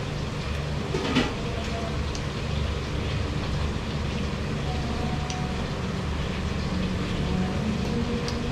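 Steady low mechanical hum from running machinery, with one sharp click about a second in.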